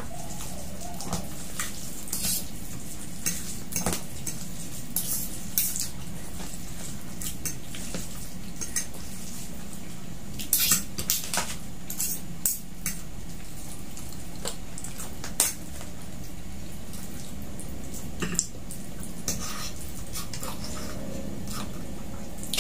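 Forks and spoons clicking and scraping against plastic plates and a takeaway tray while eating spaghetti, with scattered light clicks, a quick cluster of them about ten seconds in, over a steady low hum.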